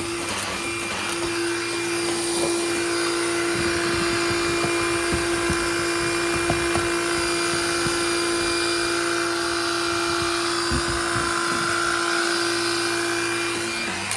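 BLACK+DECKER Furbuster handheld vacuum running, a steady motor whine over a rushing hiss, a little louder from about two seconds in.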